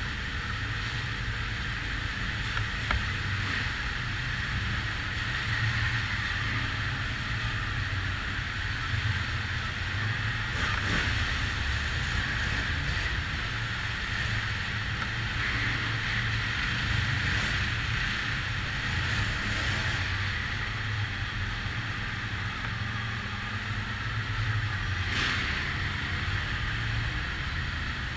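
ATV engine running steadily as the quad rides along a trail: a constant low drone with a higher hum over it, and a couple of brief knocks, about a third of the way in and again near the end.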